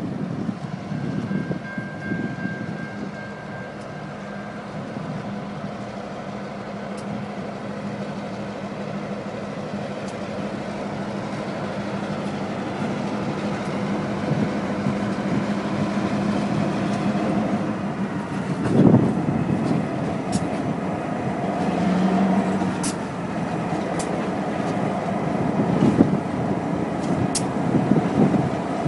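Two Norfolk Southern GP38-2 diesel locomotives with EMD 16-cylinder 645 engines rumble slowly past, their engines running with a steady low hum that grows louder as they come closer. A few sharp clicks come in the second half.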